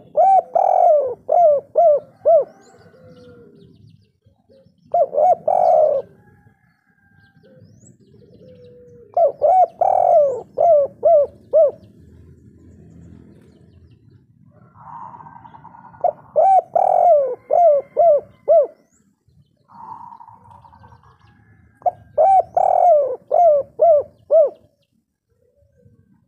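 Spotted dove cooing its 'kuk 3' song: about six phrases, each a quick run of several coo notes, a few seconds apart.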